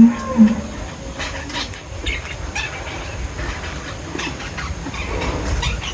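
Small birds chirping in short, scattered calls over a steady low rumble; a low, drawn-out call ends about half a second in.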